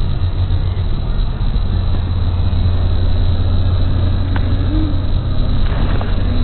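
Steady low rumble of a car heard from inside the cabin, with a faint click about four seconds in.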